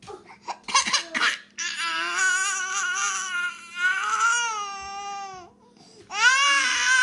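Baby crying after having its pacifier taken: a few short sobs, then one long wail, a brief pause, and a second wail starting near the end.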